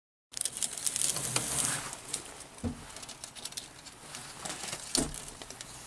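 Clear plastic SMD reel case and carrier tape being handled and clinched onto a parts counter's reel arm: crackly plastic rustling, with two sharper knocks about two and a half and five seconds in.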